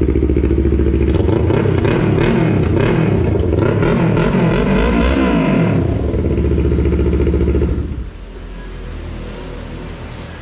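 Sport motorcycle with an aftermarket slip-on exhaust idling, then revved in several quick blips that rise and fall in pitch. It settles back to idle and shuts off abruptly about eight seconds in.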